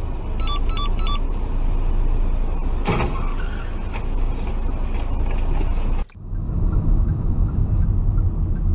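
Steady car road and engine noise recorded by a dashcam inside a moving car. A quick series of short electronic beeps comes about half a second in, and a brief noise about three seconds in. The sound cuts off abruptly about six seconds in, and a similar steady driving rumble from another car follows.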